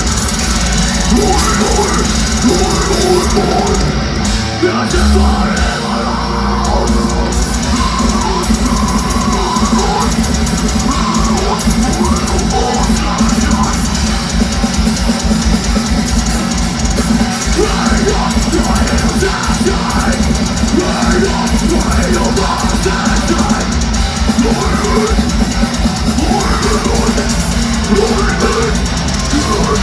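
Death metal band playing live: distorted electric guitars, bass and a drum kit, with vocals over the top, heard loud from the audience.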